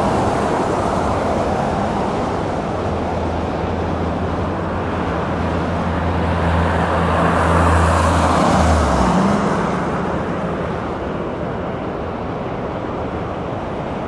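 Road traffic on a snow-covered highway: steady road noise, swelling as a vehicle with a low engine hum passes in the middle, then easing off near the end.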